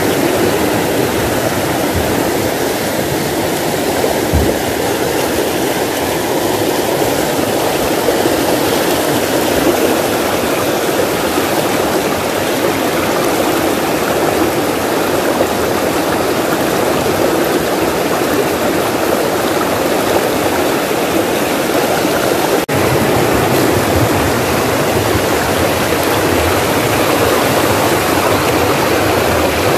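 Shallow rocky stream rushing and splashing over boulders and stones close by, a loud, steady rush of water.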